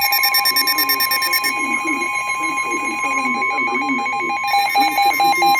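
Emergency Alert System attention tone: a loud, steady alarm tone held without a break.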